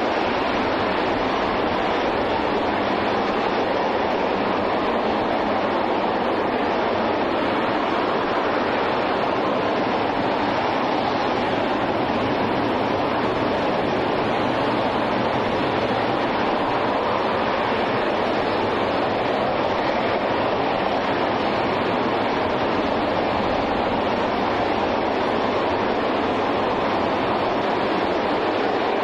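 RS-25 liquid-hydrogen/liquid-oxygen rocket engine (the Space Shuttle Main Engine) firing continuously in a static test: a steady, unbroken rushing roar that holds an even level throughout.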